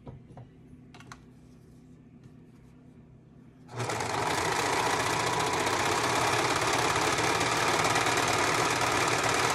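Serger (overlock sewing machine) starts up about four seconds in and runs at a steady speed, stitching, overcasting and trimming the seam of two layers of fleece. Before it starts, only a few faint clicks of fabric being handled.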